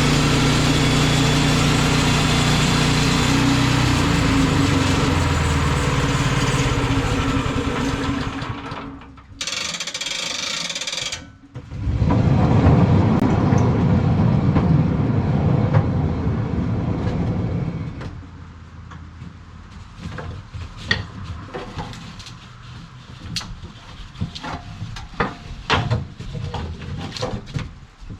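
Bandsaw sawmill's gas engine running loud and steady while the blade resaws a board, briefly dropping away about nine seconds in and coming back with a rougher, noisier cutting sound. From about eighteen seconds in the mill goes much quieter, and a series of sharp knocks and clacks follow.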